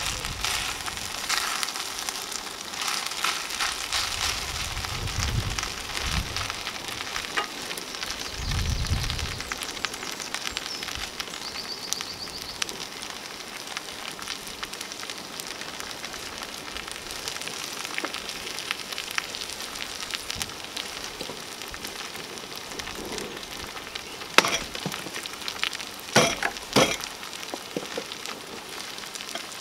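Chopped stinging nettles sizzling in a pan over an open wood fire, a steady frying hiss. Dull low thumps come about five and nine seconds in, and a few sharp knocks near the end.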